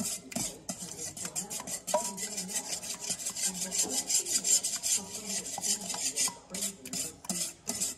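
Wire whisk beating eggs and milk in a stainless steel bowl: rapid, even strokes of the wires scraping and splashing around the metal bowl, several a second.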